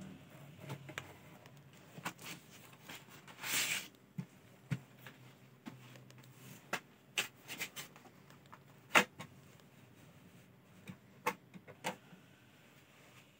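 Scattered plastic clicks and knocks as a folding phone screen magnifier is handled, unfolded and set on a table, with a short scrape about three and a half seconds in; the loudest click comes a little past the middle.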